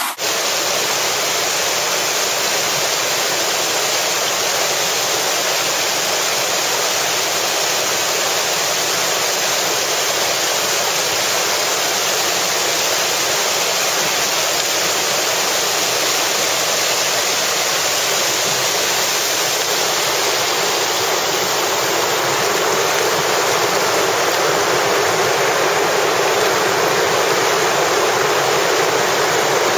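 River water rushing over rapids: a steady, unbroken rush of white water.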